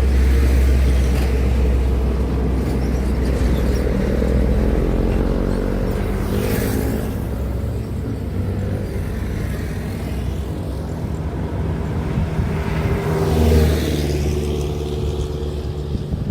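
Heavy diesel trucks passing on a highway: a deep engine drone with shifting engine tones. Tyre noise swells and fades as a vehicle passes close about six seconds in, and again near the end.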